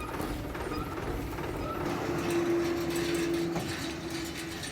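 Mechanical clicking and rattling over background noise, with a steady hum from about two seconds in until near the end.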